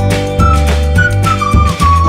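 Background music: a high, gliding melody over a steady bass beat.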